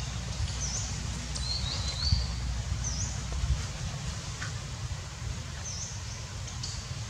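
Short, high bird chirps, each a quick dip and rise in pitch, repeating every couple of seconds, with another brief call about two seconds in. A steady low rumble of outdoor background noise runs underneath.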